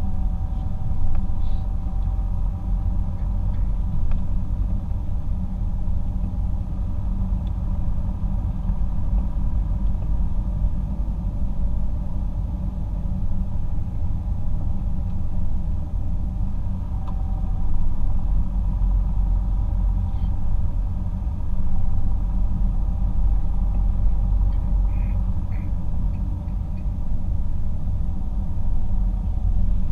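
Car driving at a steady cruising speed, heard from inside the cabin: a continuous low rumble of road and engine noise.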